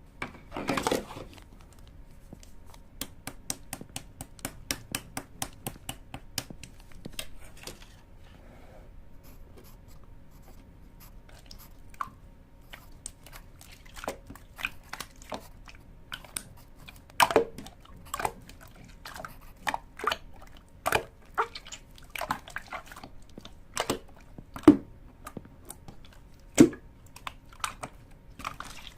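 A series of sharp clicks and taps at an irregular pace, in quick runs early on and scattered, louder taps later.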